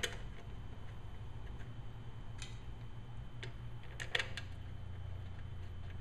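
A few light metal clicks and ticks as small screws are hand-started and wiggled into a lawn mower carburetor's diaphragm cover, over a steady low hum. The loudest clicks come about four seconds in.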